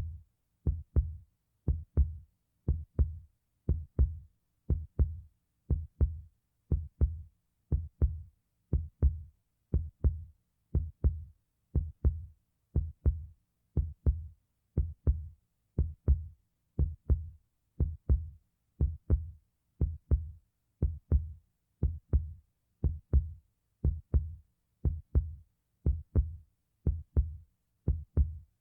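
Heartbeat sound effect: steady lub-dub double thumps, about one heartbeat a second, each a deep thump with a short click on top.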